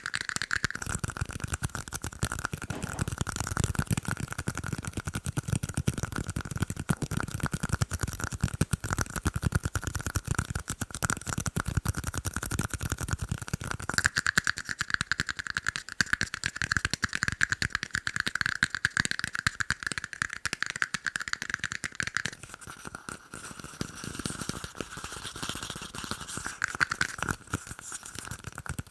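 Fast, continuous tapping on tiny cups: a dense stream of quick taps over a steady ringing note. The low thud under the taps fades about halfway through, and the tapping turns quieter for a while about two-thirds of the way in.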